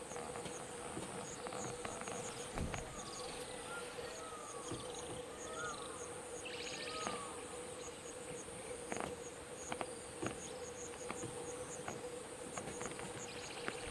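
Wild outdoor ambience dominated by insects: a steady high-pitched buzz with rapid, even chirping under it. A steady hum runs beneath. A few short chirping calls come between about 3 and 7 seconds in, with scattered soft clicks.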